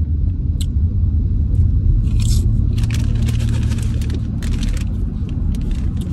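Potato chips crunching while being eaten, a run of crisp crackles from about two seconds in lasting a few seconds, over the steady low rumble of a car driving, heard from inside the cabin.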